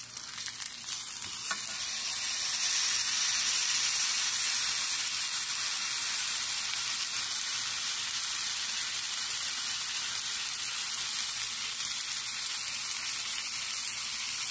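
Seasoned meat searing in a hot cast-iron skillet: a loud, steady sizzle of frying fat, swelling a little about two seconds in as the meat settles after being turned with a fork.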